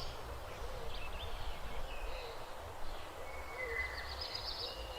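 Outdoor ambience: a steady low rumble with a few faint, short bird calls scattered through.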